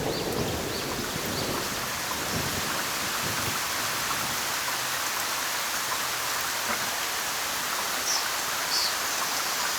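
A steady hiss of noise, with two faint short high chirps near the end.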